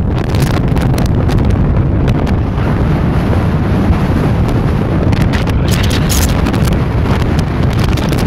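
Strong crosswind buffeting the microphone: a loud, steady low rumble, with a few sharper crackles about five to six seconds in.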